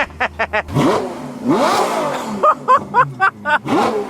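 Ferrari F12's V12 with a straight-piped exhaust idling, then revved in short blips that rise in pitch: about a second in, again about half a second later, and once more near the end.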